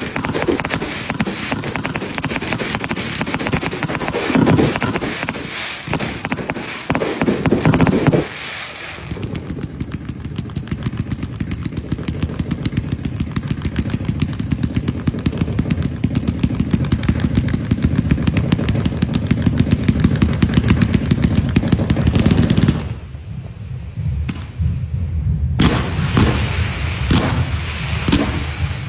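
Fireworks going off: ground-launched shots and crackling bursts overhead, then a long, rapid, evenly spaced string of shots through the middle. After a short lull, further separate bangs near the end.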